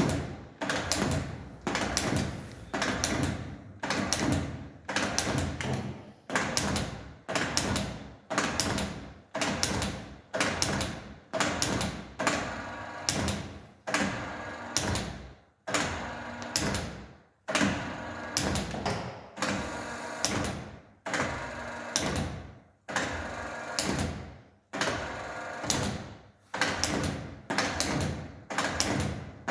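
CNC lathe tool turret indexing over and over, about once a second: each index starts with a sudden clunk and a motor whir that dies away before the next.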